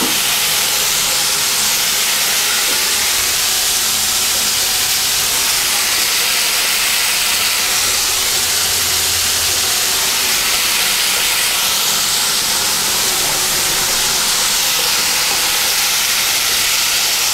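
Julienned bottle gourd peel sizzling in hot refined oil in a wok: a steady, even hiss that does not let up.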